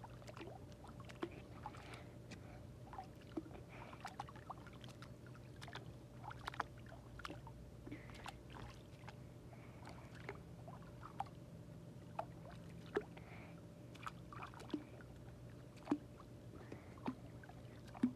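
Small splashes and lapping of swimming-pool water as a mermaid doll is pushed through it by hand, in irregular little bursts, a few slightly louder near the end. A faint steady low hum runs underneath.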